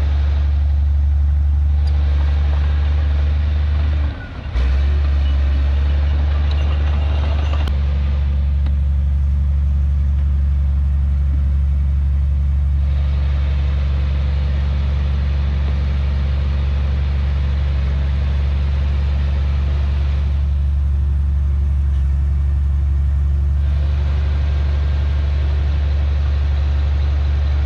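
Heavy diesel earthmoving machinery running steadily with a loud, low, constant drone. There is a brief drop about four seconds in, followed by a few seconds of added clattering before it settles back to the steady drone.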